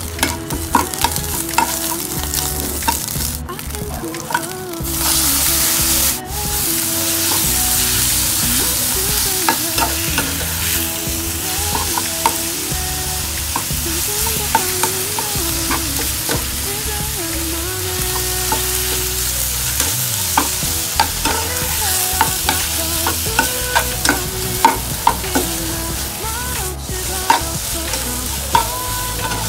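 Red curry paste and chopped frog pieces stir-frying in hot oil in a nonstick pan: steady sizzling, with frequent scrapes and taps of a plastic spatula against the pan. There is a louder burst of sizzling about five seconds in.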